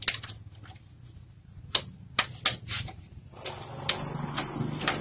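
Socket wrench tightening the 17 mm swing-arm pivot nut on a Yamaha Vixion: sharp metallic clicks come at uneven intervals, then more busily from about three and a half seconds in.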